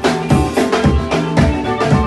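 Congolese seben dance music played live by a band: a drum kit keeps a steady beat under guitar lines.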